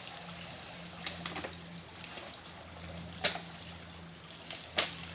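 Water trickling and dribbling out of a plastic-bottle shrimp trap as it is lifted from a stream, with three sharp clicks about one, three and nearly five seconds in.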